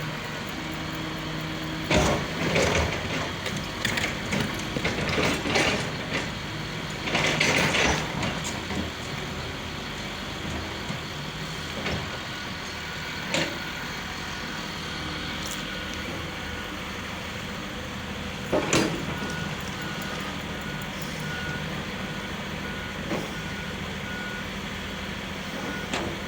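Heavy construction machinery running, with a string of loud knocks and bangs between about two and eight seconds in and another at about eighteen seconds. In the last several seconds a reversing alarm beeps at an even pace.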